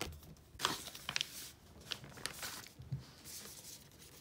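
Plastic binder sleeve pages and a card ticket being handled: a few short crinkling rustles and soft clicks.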